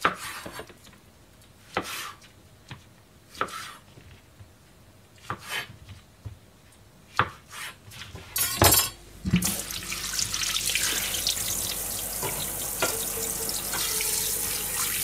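Knife cutting shiitake mushrooms on a plastic cutting board: a few separate strokes, one every second or two. About nine seconds in, after a knock, a kitchen tap runs steadily into a frying pan in the sink.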